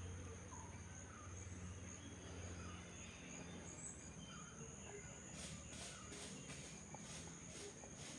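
Outdoor insect sounds: a steady high-pitched insect drone, joined about five seconds in by a rhythmic pulsing insect call at roughly two to three pulses a second, with faint bird chirps.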